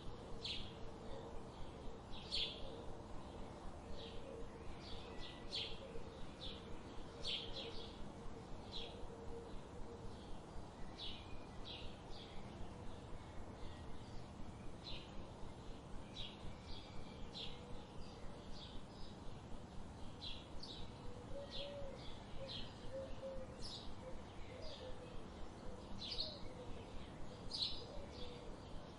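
Small birds chirping: short, high chirps come irregularly, several every few seconds, over a steady low background hiss. A fainter, lower warbling note comes and goes in the background.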